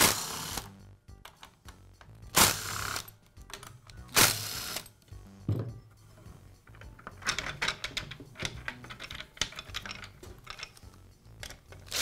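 Cordless driver spinning screws out of a plastic tool handle in three short bursts, each about half a second and about two seconds apart. In the second half come many light clicks and rattles of plastic housing parts and screws being handled.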